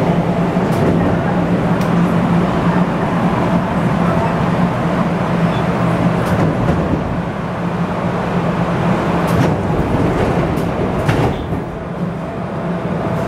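Steady low hum inside an MR-63 Montreal Metro subway car, with a few short clicks and knocks.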